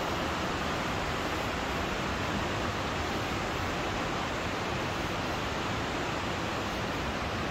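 Steady rush of water: an even, unbroken noise with no distinct events.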